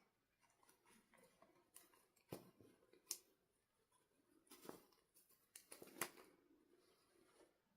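Faint, scattered clicks and taps of small objects being handled, a handful of sharp ones with the loudest about six seconds in.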